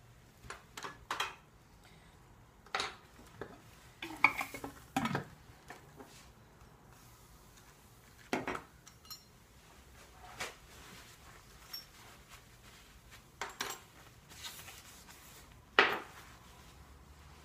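Ceramic mortar and pestle and metal lab tools clinking and knocking as they are handled on a bench, in scattered short knocks with the sharpest near the end.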